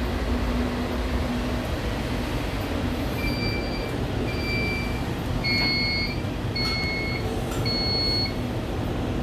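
Cynosure Apogee 5500 laser unit running with a steady mechanical whir. From about three seconds in it gives a string of short electronic beeps, roughly one a second, a few of them with sharp clicks.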